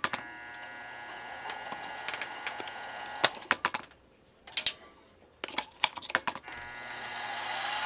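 Milling machine spindle motor with a steady whine that stops a few seconds in, broken by clusters of sharp clicks from handling the machine; near the end the spindle starts again and comes up to speed.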